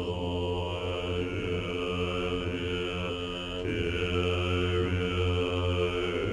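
Tibetan Buddhist monks of Namgyal Monastery chanting in deep, low voices: a sustained drone with a ringing overtone band above it, breaking briefly for a new phrase about halfway through.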